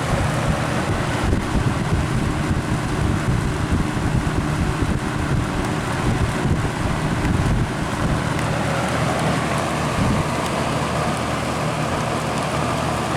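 Lakewood 20-inch box fan, model P-223, running on high: a steady rush of moving air over a constant low motor hum.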